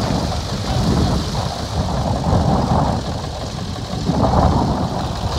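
Engines of vintage tractors running as they drive slowly past close by: a steady, low, rough rumble.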